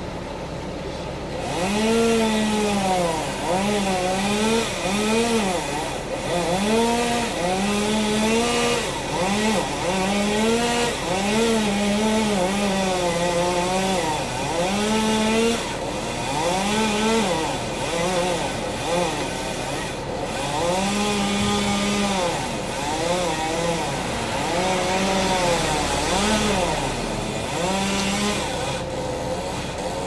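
Chainsaw revving up and down in repeated short surges, roughly one a second, its pitch rising and falling as it cuts wood. It starts about a second and a half in, over a steady low hum.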